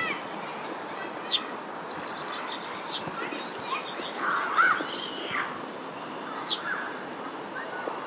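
Several wild birds singing and calling over a steady wind hiss: short sharp chirps, a rapid trill about two seconds in, and the loudest calls around four and a half seconds in.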